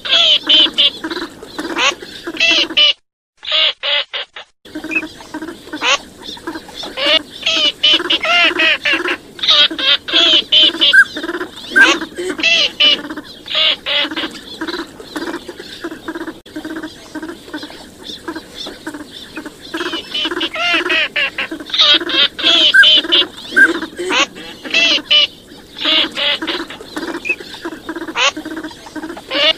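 Recorded wild duck calls, teal among them, used as a hunting lure: dense, rapidly repeated quacks and calls from several birds, broken by a short silence about three seconds in.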